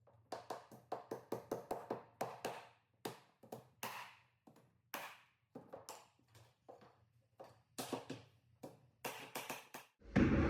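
Sharp taps and knocks in quick, irregular succession, about two to three a second: new hardwood flooring boards being knocked into place during installation.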